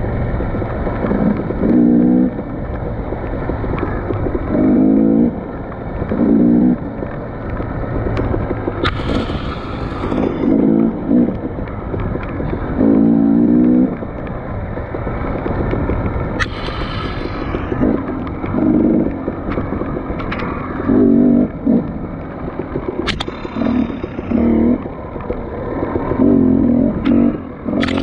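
Off-road dirt bike engine running hard over rough trail, the throttle opening in short revving surges about every two seconds over a steady rumble. A few sharp knocks are mixed in.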